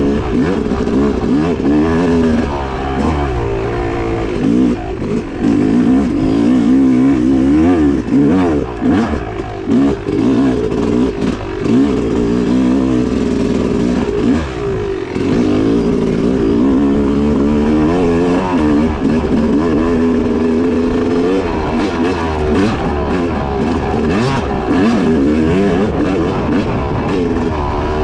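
2016 Yamaha YZ250X two-stroke dirt bike engine under hard riding, revving up and down every second or two as the throttle is worked and gears change, with the throttle chopped briefly a few times near the middle.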